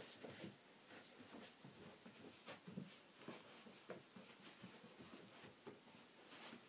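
Near silence: room tone with faint, scattered small taps and rustles.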